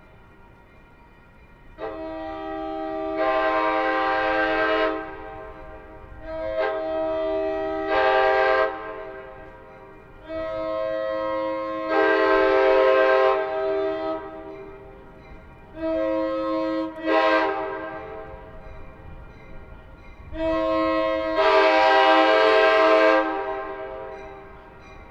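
Passenger locomotive's five-chime Nathan K5LA air horn sounding the grade-crossing warning signal: several long blasts, a shorter one, then a final long blast. The horn swells louder partway through most blasts.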